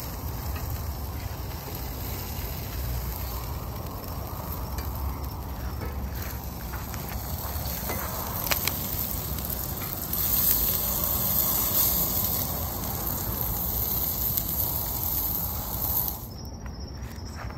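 Burger patties sizzling in a perforated grill pan over a hickory-wood campfire: a steady hiss that gets louder a little past halfway and drops off shortly before the end, with one sharp click near the middle.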